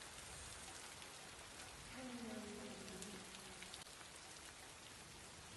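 Steady heavy rain falling and splashing, an even hiss. About two seconds in, a soft low tone slides slowly downward in pitch for under two seconds beneath it.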